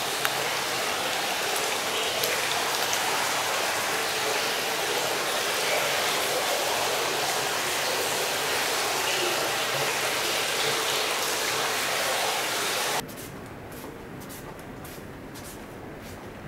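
Steady rushing water. About 13 s in it cuts off abruptly to a much quieter background with faint ticks.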